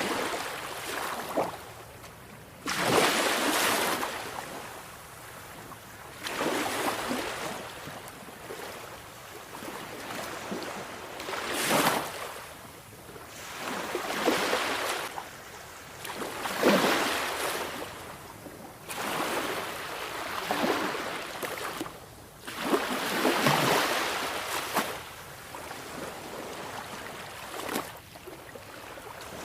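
Sea waves breaking and washing in, a fresh surge every three to four seconds, each swelling into a hiss and then falling away.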